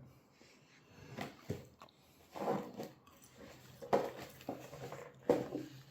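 A few short rustling, crunching sounds of a takeaway fried-chicken meal being eaten and handled, about four in all, spaced a second or so apart, over a faint steady hum.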